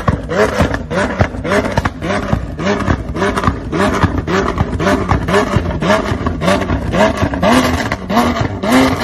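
Lamborghini Aventador SVJ's V12 revved in rapid short blips, about three a second, each a quick rise in pitch, with sharp crackling pops and bangs from the exhaust as it shoots flames.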